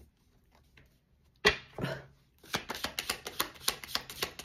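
A deck of oracle cards being shuffled by hand: one sharp slap of the cards about a second and a half in, then a fast run of card clicks, about five a second.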